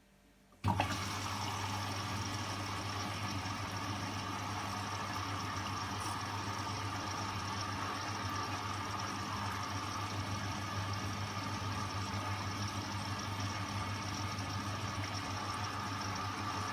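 Hotpoint washing machine starting up about a second in and then running with a steady mechanical hum.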